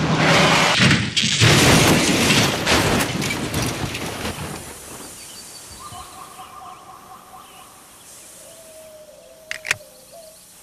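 A vehicle crash: a loud smash with shattering that dies away over about four seconds. Then birds chirp in the quiet, with one sharp click near the end.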